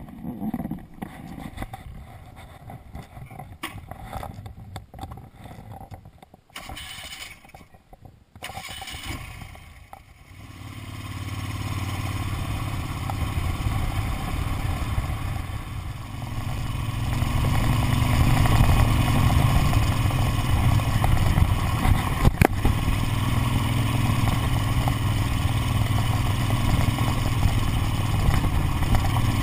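1976 Moto Guzzi Convert's air-cooled V-twin engine running as the bike rides along. The sound is uneven and quieter for the first ten seconds or so, then settles into a steady low drone that grows louder about ten seconds in and again a few seconds later as the bike picks up speed.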